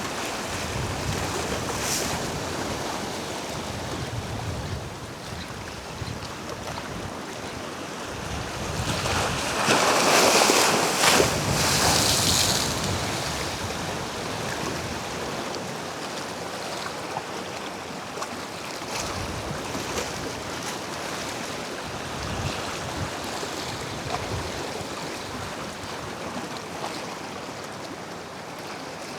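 Ocean waves washing against jetty rocks, with wind buffeting the microphone; a louder wave rushes in about ten seconds in.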